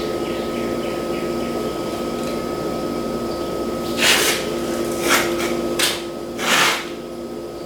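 A small electric motor whining steadily, with four short, harsh bursts of noise between about four and seven seconds in.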